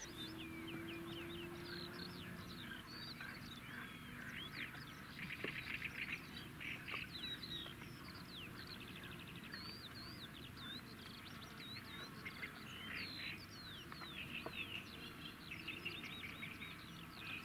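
Songbirds chirping and trilling, many short rising and falling calls overlapping, faint.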